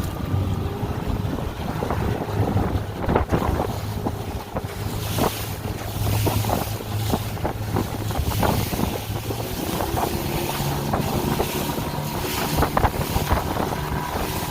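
A small fishing boat's outboard motor running under way through choppy waves, with repeated hull slaps and spray and wind buffeting the microphone. The engine's steady hum rises in pitch about two-thirds of the way through.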